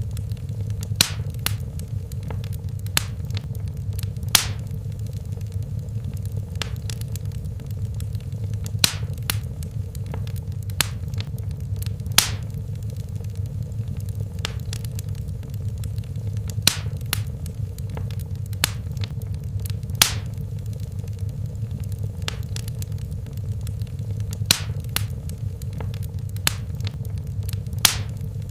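Wood fire burning in a fireplace: a steady low rumble of flames with sharp, irregular crackles and pops, roughly one every second or two.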